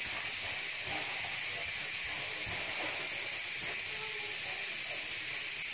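Steady hiss, with the soft rustle of hands rubbing damp couscous grains in a glass bowl.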